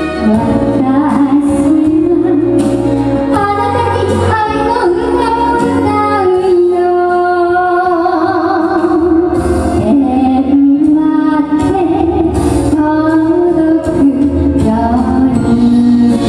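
Woman singing a Japanese popular song into a microphone over instrumental accompaniment, holding long notes.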